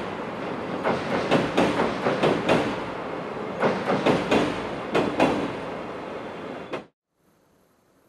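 Wheels of passing passenger coaches running over rail joints on a steel girder bridge: a steady rumble with repeated groups of clickety-clack, two or three clicks at a time as each bogie crosses a joint. It cuts off suddenly about seven seconds in, leaving near silence.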